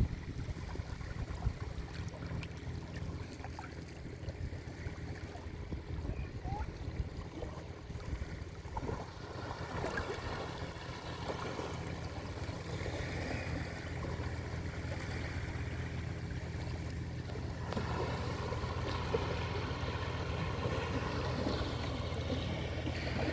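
Sea waves washing onto a beach, with a steady low rumble under the splashing. Faint, distant voices of people in the water come and go, more so in the second half.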